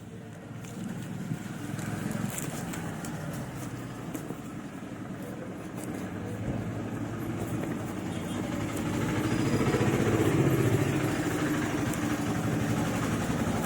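Background road traffic: a motor vehicle's engine and rumble, swelling to its loudest about ten seconds in as it passes.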